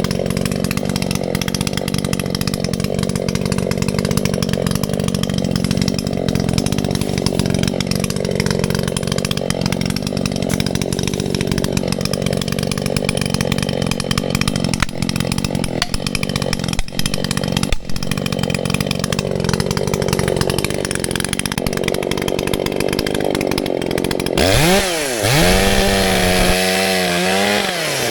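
Echo CS-620PW two-stroke chainsaw running steadily under load, cutting through a large dead tree trunk. About 24 seconds in, the sound changes to the saw revving up and down several times.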